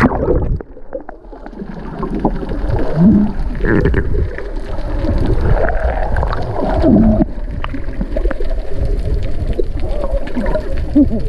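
Water sloshing and gurgling around a swimmer's camera, likely underwater, with a deep rumble and bubbling throughout.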